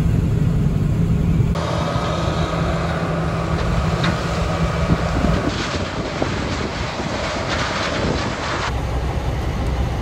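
John Deere combine harvester running while harvesting corn: a steady engine and machinery drone with a low hum. The sound changes abruptly about a second and a half in and again near the end.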